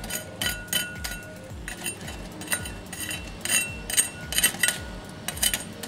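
Deep-fried, cornstarch-and-flour battered chicken wings being tapped and turned with a utensil in a stainless mesh strainer: a run of irregular crisp crackles and light clinks. This is the sound of a crust fried crisp.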